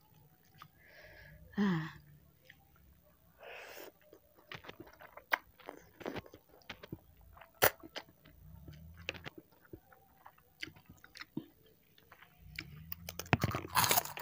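Close-miked eating of saucy instant noodles: two short slurps as a forkful is sucked in, then wet chewing with many small clicks and smacks. About thirteen seconds in, louder crisp crunching.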